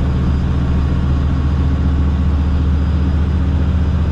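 Dump truck's diesel engine running steadily with a low hum, heard from inside the cab.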